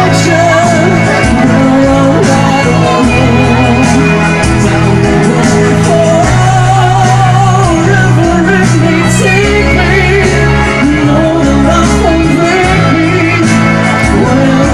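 Live pop music played loud through a PA system, with a heavy bass line and a sung melody over it.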